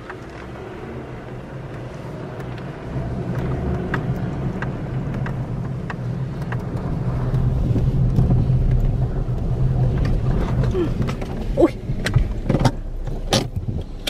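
Car engine running at low speed on a rough dirt track, heard from inside the cab. It grows steadily louder over the first half, with small clicks and rattles from the car throughout and a flurry of louder knocks and rattles near the end as it goes over bumps.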